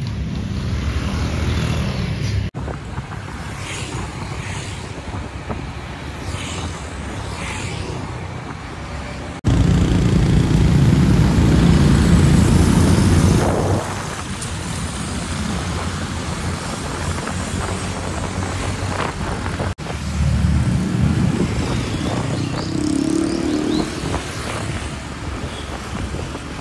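Motorcycle ride with the engine running under steady road and traffic noise, heard in several short segments that change abruptly three times, loudest from about ten to thirteen seconds in.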